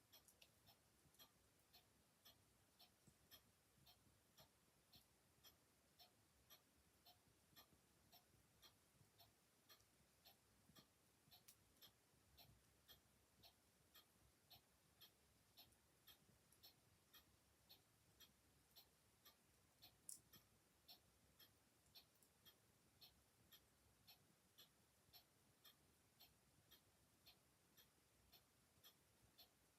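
Faint, steady ticking of a clock, about two ticks a second, with an occasional sharper pop from a log fire, the loudest about twenty seconds in.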